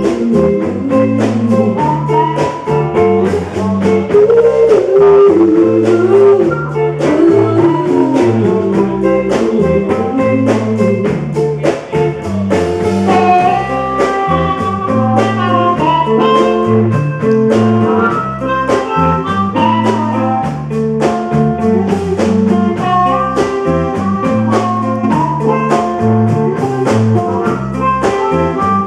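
Live band playing: amplified guitar lines over a stepping low bass line and a drum kit.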